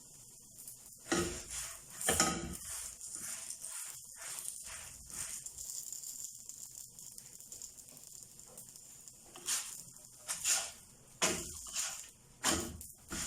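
Msemen flatbreads being handled while they cook in a pan: a faint steady hiss with irregular short slaps and knocks, a pair about a second in and a run of them in the last few seconds.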